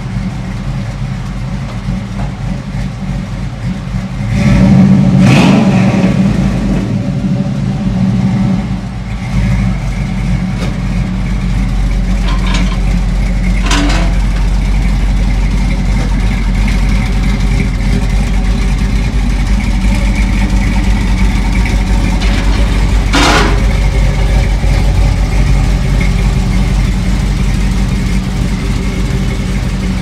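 Cammed 6.0-litre LS V8 in a swapped Chevy Colorado idling through an aftermarket exhaust with turn-down tips. It is revved once about four seconds in, then settles back to a steady idle. A few short, sharp clicks come in the middle and later.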